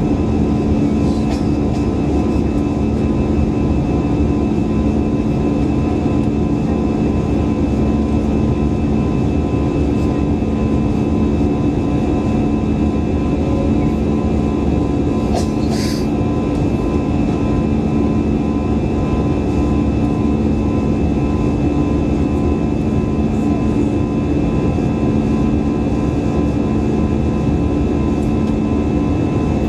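Airbus A320-200 jet engines running steadily: a continuous drone with a constant hum, and one brief click about halfway through.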